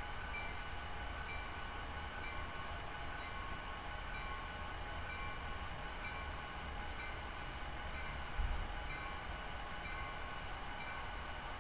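Sound of a diesel locomotive running steadily, played by an HO-scale model locomotive's LokSound DCC sound decoder through its small onboard speaker. There is a low rumble throughout and one low thump about two-thirds of the way through.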